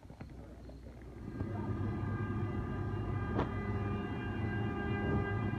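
SBB Re 450 electric locomotive moving along the platform. Its steady electric whine of several tones over a low rumble sets in loudly about a second in, with one sharp clank about three and a half seconds in.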